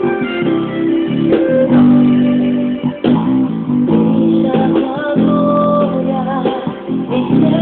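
Band music with guitars and bass guitar playing held chords that change every second or two, with a melody line above; no singing.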